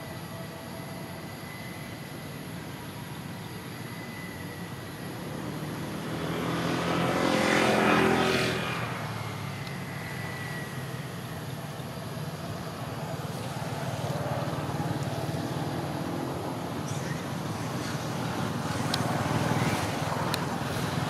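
A motor vehicle passing close by: its engine grows louder over a couple of seconds, peaks about eight seconds in, then falls away quickly, over a steady background hum.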